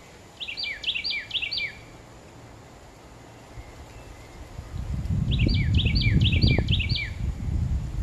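A songbird sings the same short phrase twice, each a quick run of about five repeated rising-then-falling whistled notes, near the start and again about five seconds in. A low rumble swells up with the second phrase and is the loudest sound.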